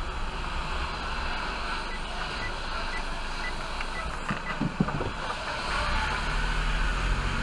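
Cabin sound of a Maruti Baleno RS moving slowly: a steady low engine and road rumble. Between about two and four seconds in, a faint row of short high beeps comes about twice a second, and a brief knock sounds near five seconds.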